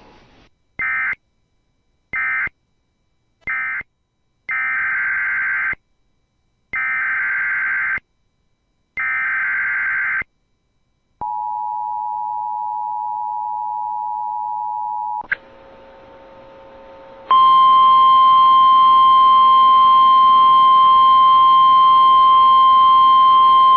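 Emergency Alert System tones. Three short data bursts close one alert (the end-of-message code), and three longer data bursts open the next (the header). These are followed by the two-tone attention signal for about four seconds, a couple of seconds of receiver hiss, and then a loud, steady single alert tone, the loudest part.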